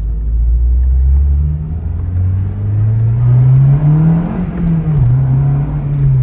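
Acura RSX Type S 2.0-litre four-cylinder engine pulling hard under acceleration, its pitch climbing steadily, then dropping briefly about five seconds in as the next gear is shifted into.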